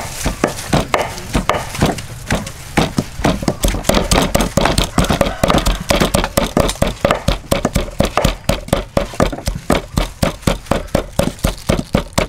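A heavy cleaver chopping rapidly on a thick wooden chopping block, in steady, even strokes of about three to four a second.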